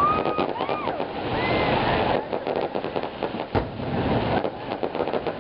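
Aerial fireworks shells going off: a dense run of crackling pops with one sharp bang about three and a half seconds in, over a steady rushing noise.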